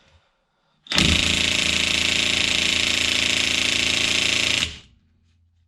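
DeWalt DCF899 18V cordless brushless impact wrench hammering on a strut bolt on its speed setting 2 for about four seconds, starting about a second in and then stopping. The bolt does not come loose at this setting.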